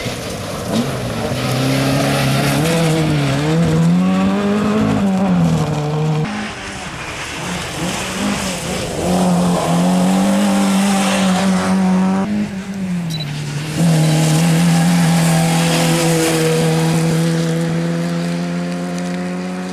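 Peugeot 205 Rallye's four-cylinder engine revving hard on a gravel stage, its pitch climbing and dropping through gear changes, over the hiss of tyres on loose gravel. Near the end it holds high revs steadily as the car climbs away.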